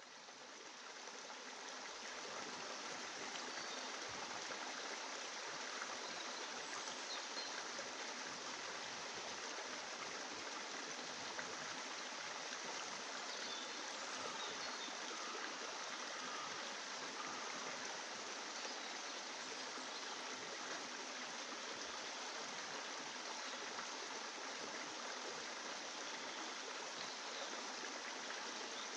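Steady rushing of a flowing stream, fading in over the first two seconds and then holding level.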